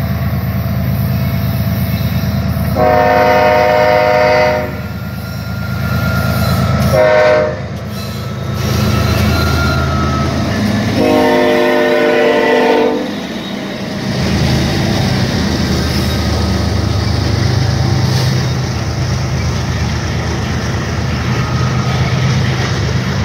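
BNSF diesel freight locomotives sounding the air horn three times, long, short, long, over the steady low rumble of the engines. After the locomotives pass, covered hopper cars of a grain train roll by with steady wheel-on-rail noise.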